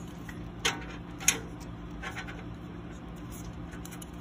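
Hands handling a plastic 92 mm CPU cooler fan and its cable: light scratching with two sharp clicks about half a second apart, about a second in, over a low steady hum.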